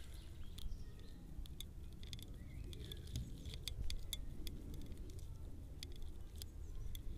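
Faint low rumble with scattered sharp little clicks and ticks at irregular intervals, about a dozen of them.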